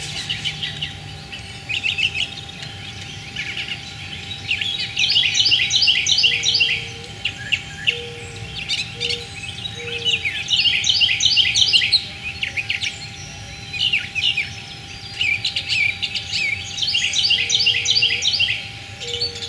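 Backyard songbirds singing: phrases of rapid, high chirping that come back every five seconds or so, with single chirps and a few short lower notes in between.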